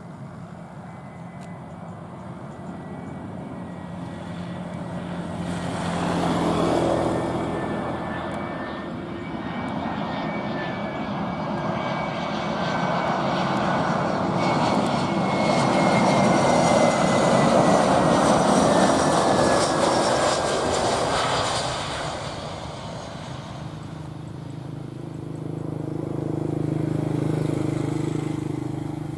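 Jet engines of an AirAsia Airbus A320-family airliner on its landing run. The roar swells, peaks for several seconds about halfway through, then dies away, with a thin high whine that slides slowly down in pitch.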